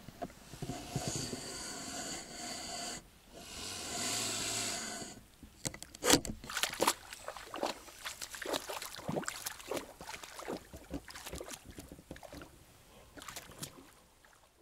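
Mute swan splashing and bathing in shallow lake water: many quick, irregular splashes and water slaps from about five seconds in, tailing off near the end. The first five seconds hold two long hiss-like noises.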